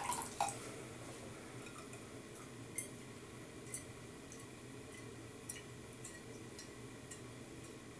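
Faint, scattered small ticks and drips, about one a second, as water falls from a soaked badger shaving brush into a bowl, after a couple of light knocks at the start, over a faint steady hum.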